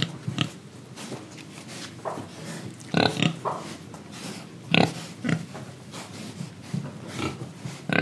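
Young pigs grunting, one short grunt every second or so, with the loudest about three seconds and five seconds in.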